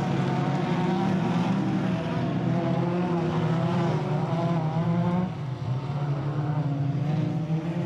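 Engines of several small production-based autocross race cars revving hard, their pitch rising and falling as the drivers accelerate and lift. The engine noise drops briefly about five seconds in.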